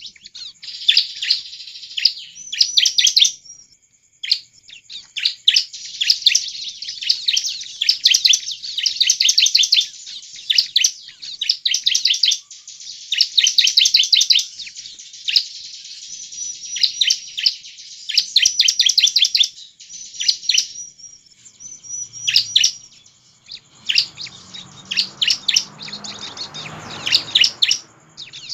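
Bar-winged prinia (ciblek) singing vigorously: rapid runs of high, quick chirping notes, phrase after phrase with short breaks. This is the full, active song used as a lure to set other prinias singing. A faint low rumble sits under the last few seconds.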